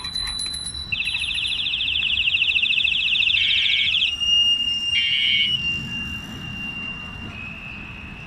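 Bicycle bells rung by passing cyclists: a loud, rapid trill of ringing from about one to four seconds in, then bells ringing on at a slightly lower pitch, with another short trill about five seconds in. The ringing fades near the end.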